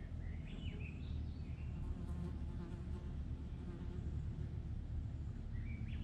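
Small birds giving short sweeping chirps in the first second or two and again near the end, over a steady low hum.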